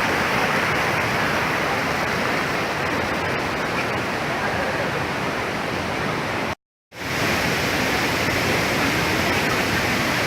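Steady rush of a large waterfall's falling water, cutting out completely for a fraction of a second about two-thirds of the way through before resuming unchanged.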